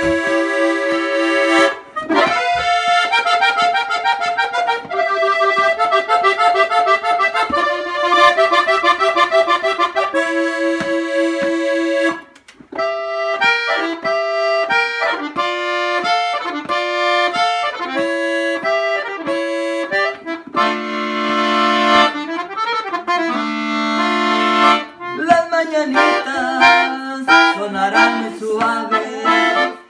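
Solo accordion playing a melody over chords, with a short break about twelve seconds in.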